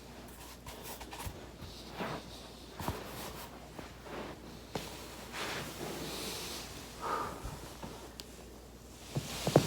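Soft rustling swishes of a body rolling over a foam roller, with a few faint clicks. Near the end comes a sharp cluster of loud cracks: joints in the back or spine cracking under the roller.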